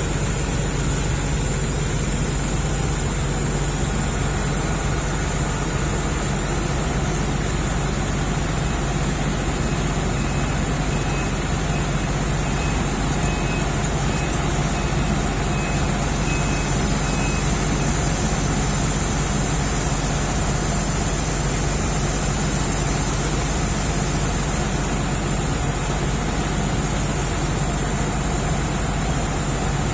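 Diesel engine of a Sumitomo hydraulic excavator running steadily with an even low drone.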